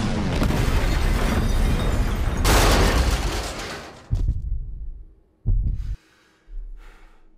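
Battle sound effects from an animated series: dense rumbling explosions and crashes, with the loudest blast about two and a half seconds in. Then two heavy booms, each dying away, after which it falls nearly quiet.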